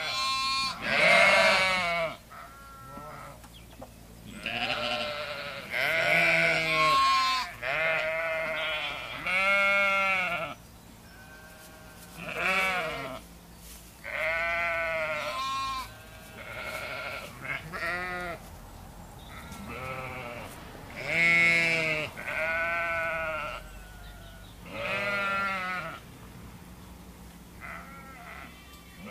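A mixed flock of sheep and goats bleating: long quavering calls from several animals, one after another every second or two, sometimes overlapping.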